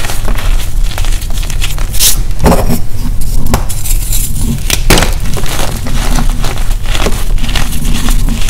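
Blocks of gym chalk crushed and crumbled in bare hands: continuous crunching and crackling, with a few sharp snaps as larger pieces break, the loudest about two and five seconds in.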